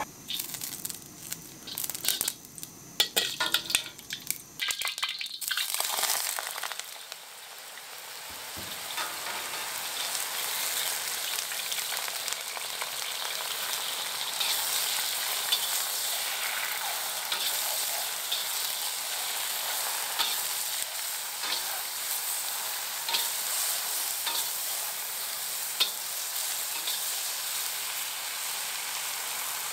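Slices of black bolete mushroom frying in lard in a steel wok, stirred with a metal spatula. A few knocks and clatters come first; then, about six seconds in, a steady sizzle starts and keeps going, with light scrapes and ticks from the spatula.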